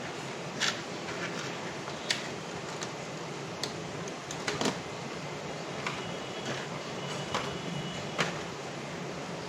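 About ten scattered sharp clicks and taps from a laptop's touchpad and keys as it is shut down, over a steady background hiss.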